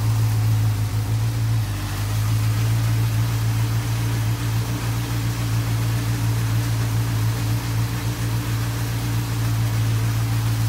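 Honda CBF600's fuel-injected inline-four engine running steadily at low revs, an even hum with no change in pitch.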